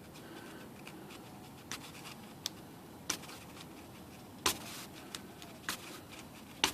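X-Acto knife blade shaving the edge of a Smith Corona's plastic ribbon shaft: scattered small ticks and short scrapes, with one slightly longer scrape about four and a half seconds in.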